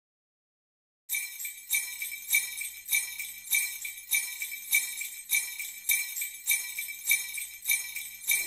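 Silence for about a second, then sleigh bells shaken in a steady beat, about one shake every 0.6 seconds.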